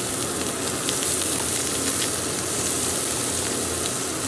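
Diced bacon, garlic and broccoli sizzling in oil in a frying pan, a steady hiss with a few light clicks.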